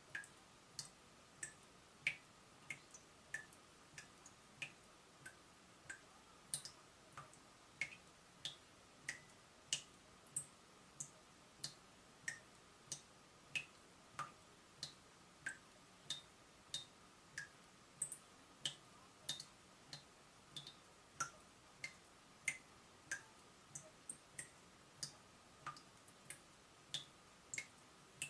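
Water dripping steadily from a leaking tap, about three drops every two seconds. Each drop is a short plink whose pitch varies from drop to drop, over a faint steady hum.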